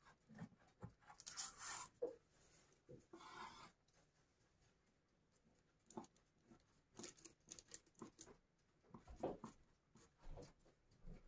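Faint scraping and rustling of a kitchen knife cutting through a freshly baked, still-soft sponge slab on baking parchment, in short irregular strokes with pauses between them.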